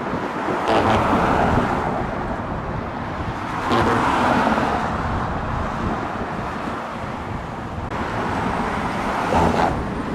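Road traffic noise: a steady hum of cars, swelling three times as vehicles pass, about a second in, about four seconds in, and near the end.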